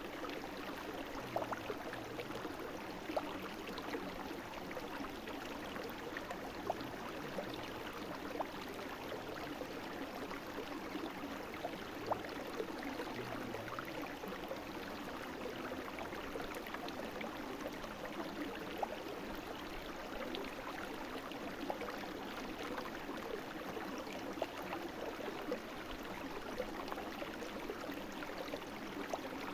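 A small brook flowing steadily over stones, with short sharper splashes every few seconds.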